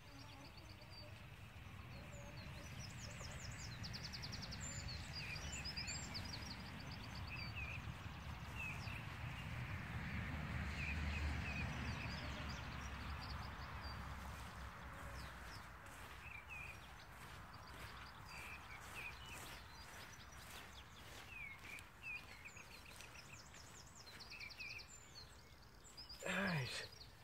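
Birds chirping and trilling over a low rumble that swells to its loudest about halfway through and then fades away. A short, louder sound comes near the end.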